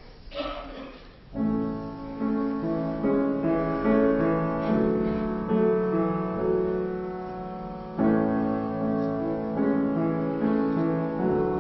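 Piano playing a slow, gentle introduction, starting about a second and a half in after a brief rustle, with chords and a melody line that begin a new phrase near the end.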